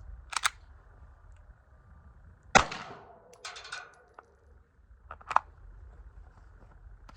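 A single pistol shot about two and a half seconds in, followed by a second, sharper crack a little under three seconds later.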